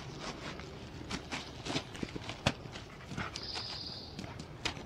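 A dog playing with a half-deflated party balloon on grass: irregular sharp crinkles and clicks as it noses, bites and pounces on the balloon, with the thumps of its paws landing.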